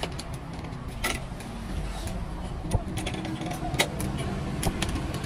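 Badminton racket stringing by hand on a stringing machine: a few sharp clicks and ticks as the string is pulled through and the machine's clamps and tension head are handled, over a steady low rumble.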